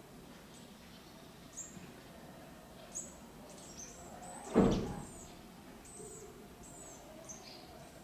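Spiderhunter chirping: a run of thin, very high, downward-slurred notes, several a second. About halfway through there is one sudden, louder thump.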